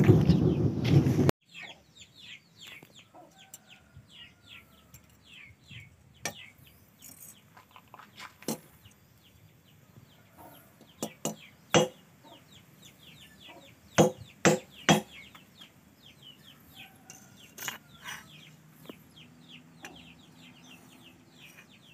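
A golok (machete) blade struck down several times on a nail laid across a steel anvil: sharp metal strikes, the loudest three in quick succession about two-thirds through. This tests whether the freshly water-quenched edge is hard enough to cut nails. It opens with a second of loud rumbling noise that cuts off abruptly.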